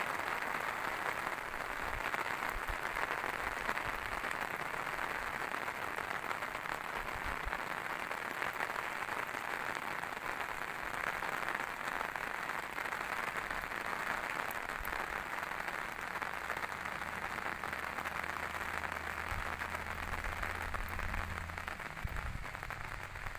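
Steady light rain falling and pattering, an even hiss of many small drops. A low steady hum joins in for several seconds near the end.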